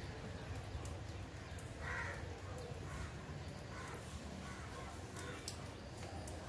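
Steady hiss of monsoon rain and wind, with a bird calling about four times in short calls, the loudest about two seconds in.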